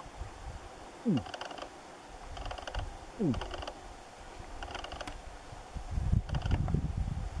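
A rutting bull moose giving two short, deep grunts that drop in pitch, about two seconds apart. Soft rustling ticks repeat about once a second, and a low rumble comes in near the end.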